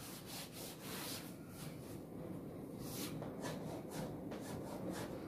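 Faint rubbing of a duster wiping a chalkboard, then a series of short scratchy chalk strokes on the board starting about a second in.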